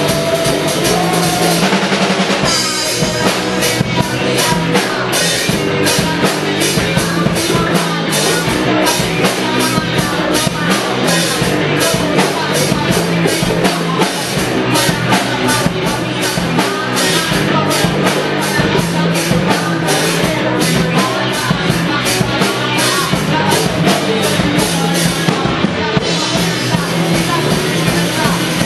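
A band playing a rock song at a sound check, driven by a full drum kit with steady, evenly spaced hits. The drums briefly drop out about two seconds in and again near the end.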